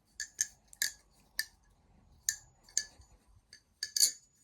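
Metal balisong (butterfly knife) being flipped: its handles clack against each other and the blade. It makes about eight sharp metallic clicks at an uneven pace, each with a brief ring, and the loudest pair comes near the end.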